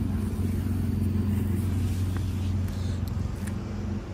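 A steady, low engine hum, like a vehicle running close by, with the faint fizz of a lit firecracker fuse burning down.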